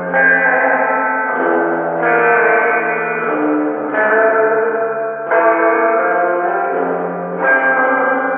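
Electric guitar played through the Safari Pedals Flamingo Verb plugin's large plate reverb with its drive turned up, and the Time Machine plugin's lo-fi filter, giving a distant, broken sound with the highs cut off. Sustained chords ring into one another, a new chord struck every one to two seconds.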